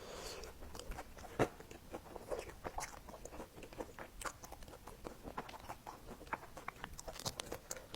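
A person chewing and biting food close to the microphone: a run of small, irregular wet mouth clicks and crackles.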